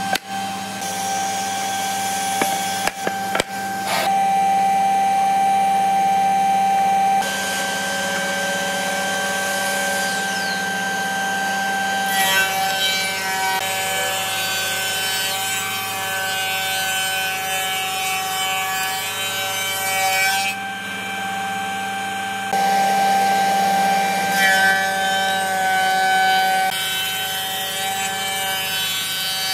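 Spindle moulder with a roller power feeder running, a steady high whine over a hum, growing louder in two stretches as long hardwood boards are fed through the cutter. In the first few seconds, a few sharp wooden clacks of cut boards being stacked.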